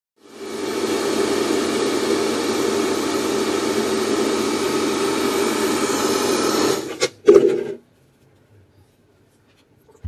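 Handheld hair dryer running steadily with a plastic water bottle fitted over its nozzle: a steady hum of air under a motor tone. It cuts off suddenly about seven seconds in, followed by a short loud burst.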